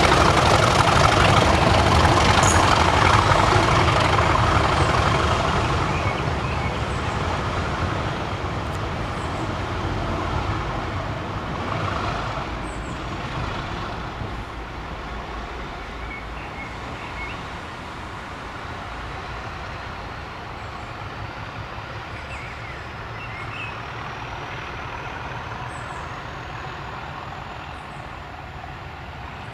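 A train passing close by, its noise dying away steadily over about fifteen seconds as it moves off into the distance, with a faint, slowly rising whine in the later part.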